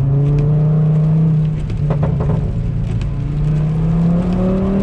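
Straight-piped turbocharged five-cylinder engine of a Volvo S60R, with a stage 2 crackle-and-pop tune, revving up under acceleration. It climbs in pitch, breaks briefly with a few sharp cracks about two and three seconds in, then climbs again.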